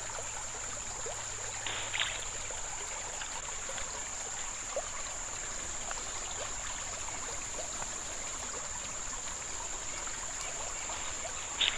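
Steady rushing and trickling of a shallow river's current, with a constant high-pitched hiss over it and a brief scratch about two seconds in.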